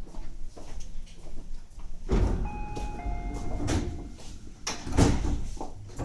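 Tobu 50000 series train's sliding passenger doors closing: the doors start to move about two seconds in, a two-note door chime sounds with the second note lower, and the doors shut with a thud about five seconds in.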